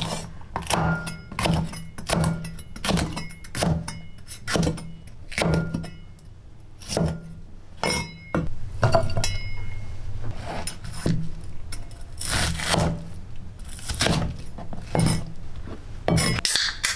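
Chinese cleaver chopping red pepper and onion on a wooden cutting board: steady knife strikes about twice a second, coming closer together near the end.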